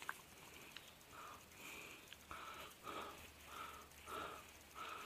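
Hands crumbling and rubbing a clump of dug soil to find a detected target, a soft rhythmic scratching about every half second.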